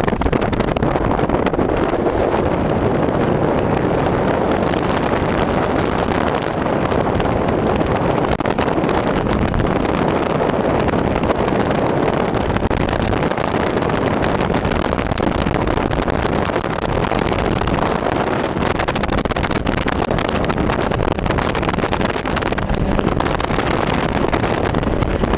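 Can-Am Outlander ATV engine running steadily under way, mixed with wind buffeting the microphone.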